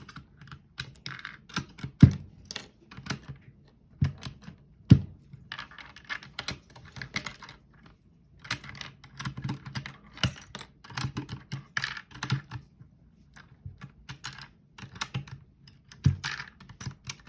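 Mechanical keyboard fitted with new keycaps being typed on in quick runs of clicky keystrokes. A few louder, deeper strokes stand out, about two and five seconds in and near the end. The typing stops briefly about eight seconds in.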